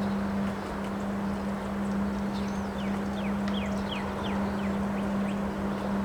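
Strong wind blowing steadily over a constant low hum, with a run of short, high, falling chirps through the middle.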